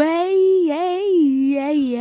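A voice singing one long wordless note that climbs at the start, bends up and down a few times, and settles lower near the end.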